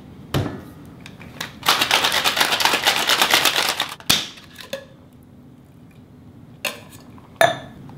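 Two-piece stainless-steel cocktail shaker: a clack as the tins are pressed together, then about two seconds of fast, even rattling as the drink is shaken, ending in a single sharp knock. A few light metal clicks follow near the end.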